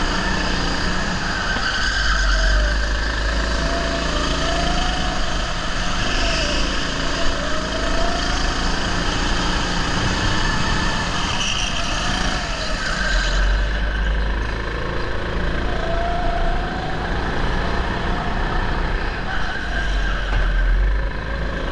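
Go-kart engine heard from the kart itself as it laps the track, its pitch rising and falling again and again as it accelerates out of the corners and backs off into them, over a low rumble.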